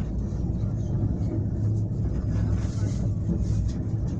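Steady low rumble inside a 71-911 tram in motion, from its wheels on the rails and its running gear.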